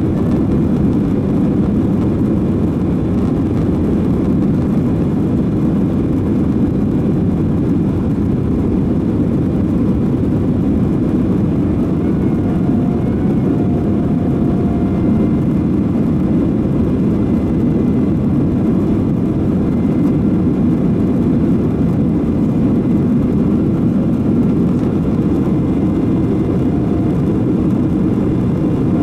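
Cabin noise inside a Boeing 767-300 airliner in flight: a loud, steady rush of jet engines and airflow. A faint high whine comes in briefly about halfway through and again near the end.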